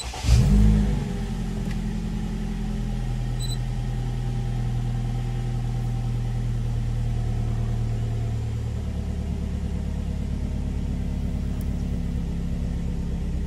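Car engine started, flaring briefly about half a second in, then settling into a steady idle.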